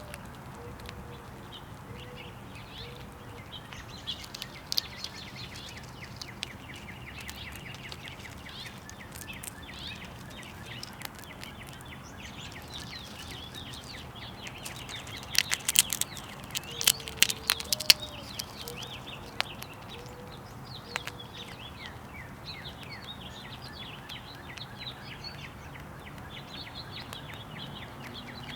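Small birds chirping throughout, with a mourning dove's cooing phrase, one longer note followed by three or four short coos, near the start and again past the middle. A burst of sharp clicks and taps rings out about halfway through.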